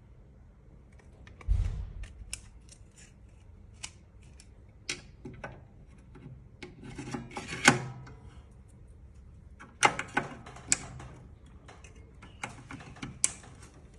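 Handling noises from taking apart an AE MAX ASIC mining machine: scattered sharp clicks and knocks of parts and tools, with rubbing and scraping between them and a dull thump about a second and a half in.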